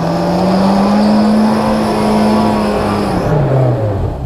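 An off-road 4x4's engine revving hard under load, its pitch climbing at the start, held for about three seconds, then dropping back.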